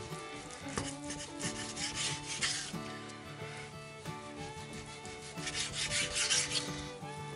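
Kitchen knife sawing through a raw pork loin and rubbing on a wooden cutting board as thick slices are cut, in a few drawn strokes that swell around a second and a half in and again around six seconds. Faint background music plays underneath.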